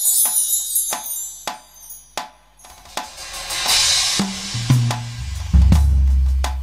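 Drums played with sticks on an electronic percussion sample pad: a run of sharp strikes, a cymbal swell about four seconds in, then deep bass-drum hits that grow heavier toward the end.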